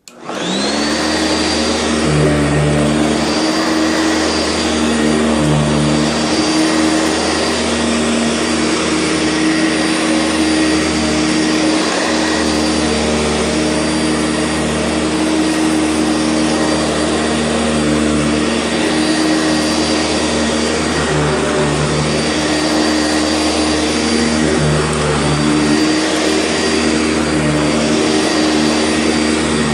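Sanitaire SC679 upright vacuum cleaner switched on, its motor winding up to speed with a rising whine. It then runs steadily, its tone shifting slightly every few seconds.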